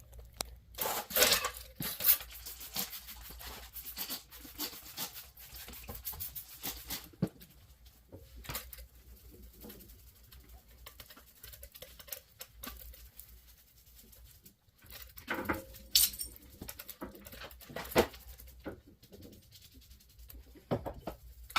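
Short hissing sprays of wheel cleaner being applied to a brake caliper, with scattered clicks and rattles of handling. A low steady hum runs underneath.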